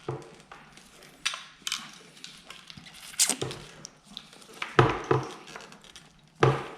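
Scattered knocks, clacks and cracking of a crashed motorcycle's parts being pulled and worked loose by hand, in a string of separate sharp strokes. The loudest come about five seconds in and just before the end.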